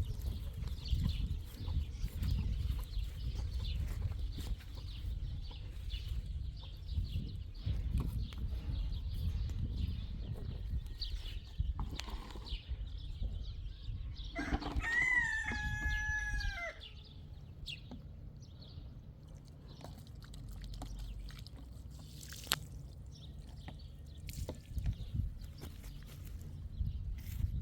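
A rooster crows once about halfway through: a single drawn-out call that rises and then holds. Low rumbling noise and scattered clicks run underneath.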